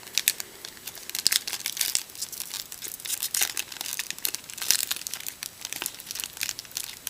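Crinkling and tearing of a trading card pack's wrapper as it is opened by hand: a rapid, irregular run of sharp crackles.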